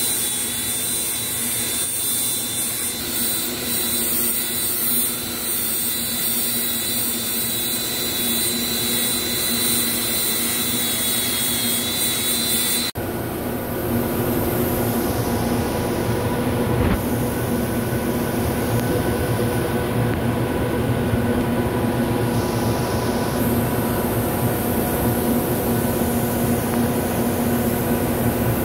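Small hand grinder with an abrasive disc running steadily against the chamfered rim of a stainless steel nozzle, a high whine over hiss, surface finishing after machining. About halfway through it cuts off abruptly to a steady machine-shop hum.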